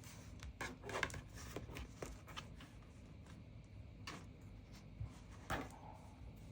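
Light clicks and taps of hands handling a smartwatch and its packaging: a quick cluster in the first two seconds or so, then single clicks about four and five and a half seconds in.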